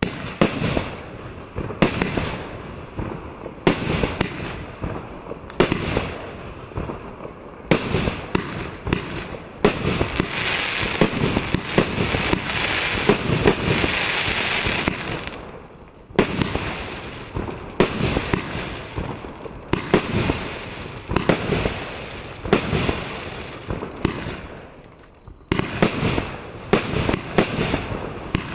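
A 25-shot consumer fireworks cake firing: a run of sharp launch and burst bangs, about one to two a second. For about five seconds in the middle the shots run together into a continuous dense rush.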